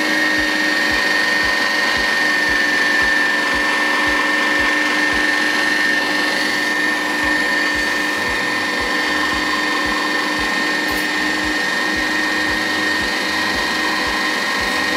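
Vitek VT-3618 electric meat grinder running under load, forcing ground meat through its sausage-stuffing tube into a casing. It gives a steady high motor whine with a low pulse repeating a few times a second.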